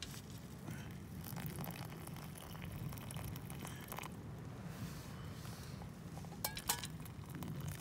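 Foil-lined dehydrated meal pouch crinkling as it is handled over a metal camping pot, with a few sharp crackles a little before the end, over a steady low rumble.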